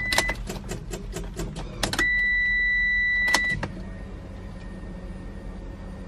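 Ignition key turned in a first-generation Eagle Talon's steering-column lock, with a run of sharp clicks and rattles. Two steady high beeps sound, a short one at the very start and a longer one of about a second and a half from about two seconds in, over a steady low hum.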